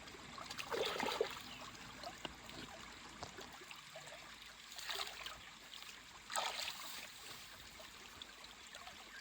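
Faint trickling water, with a few brief louder sounds about a second in, near five seconds and around six and a half seconds.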